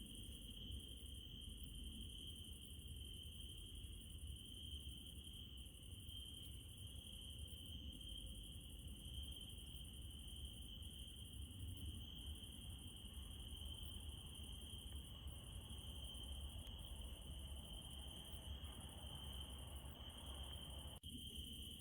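Crickets chirping in a steady, continuous high trill over a faint low rumble, briefly cutting out near the end.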